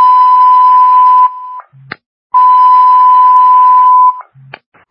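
Fire dispatch radio alert tone: a loud, steady, high beep at one pitch, held for about two seconds and sounded twice, each time ending with a brief click.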